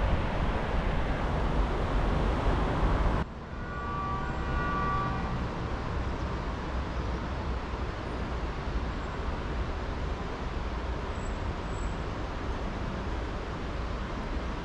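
Wind rushing on the microphone outdoors, cut off suddenly about three seconds in. A steady low city background hum follows, with a brief pitched horn-like tone lasting about a second and a half soon after the change.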